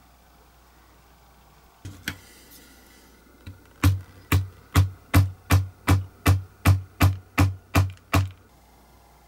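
Small hammer tapping a tiny metal pin held against a wooden block. A couple of light knocks come first, then about a dozen sharp, even taps, roughly three a second, each with a dull thud from the block.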